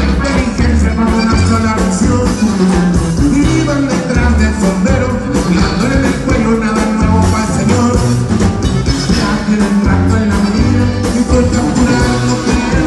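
A rock band playing live, with a singer's voice over the band.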